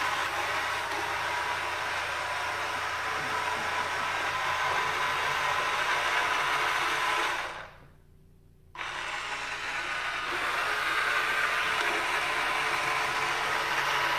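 Two geared drive motors of a Robie Sr. robot base whirring steadily as the robot drives itself across the floor. The whir drops out for about a second near the middle, then resumes.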